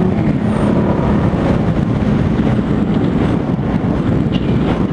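Wind rushing over the microphone of a moving sport bike, with its engine underneath. The steady engine note falls away just after the start as the bike slows and leans into a turn.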